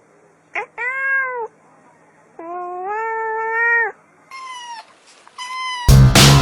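Cats meowing: a short meow, then a longer drawn-out one, then two shorter, higher-pitched meows. Loud music with a steady beat cuts in near the end.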